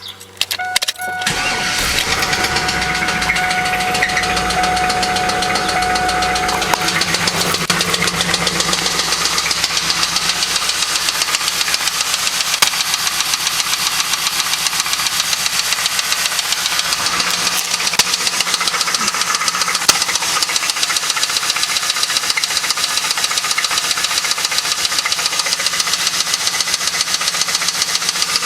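Chevrolet LS1 5.7-litre V8 cranking and catching about a second in, then idling with a rapid, regular knock. The owner takes the knock for a spun bearing.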